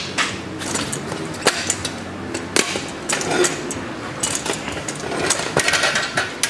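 Off-road motorcycle tyre being worked over its rim on a Rabaconda tire-changer stand: sharp metal knocks and clanks with rubber scraping, in several separate strikes and a cluster near the end.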